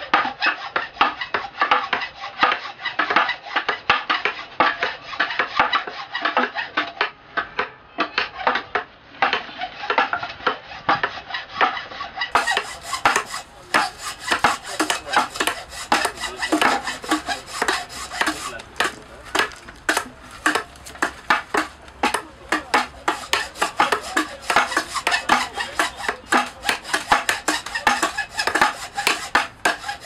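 Metal carving tools cutting hardwood in quick repeated strokes, several a second: a blade chipping out the inside of a djembe shell, then, about twelve seconds in, a tool chopping facets along the outside of the shell's base.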